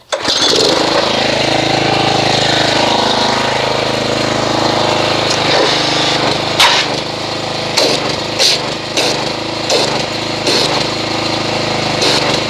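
Pressure washer starting up suddenly and running steadily, its jet of water blasting into a bucket of car-wash soap and water and churning it into foam, with sharper splashes now and then in the second half.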